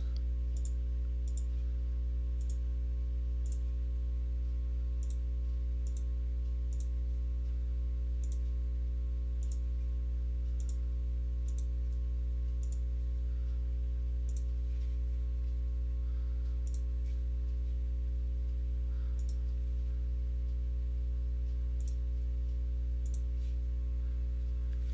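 Computer mouse clicking at irregular intervals, about one click a second, while edges are selected one by one in CAD software. Under the clicks is a steady, loud low electrical hum.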